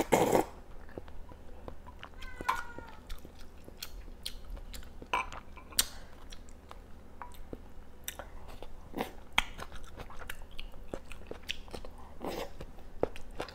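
Close-up eating sounds: a loud slurp of hot broth from a bowl at the start, then chewing with scattered clicks of chopsticks. A cat meows once, briefly and falling in pitch, about two and a half seconds in.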